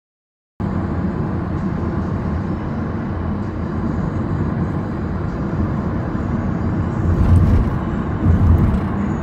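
Steady road and engine noise inside a moving vehicle, cutting in abruptly just after the start, with a couple of brief louder low swells near the end.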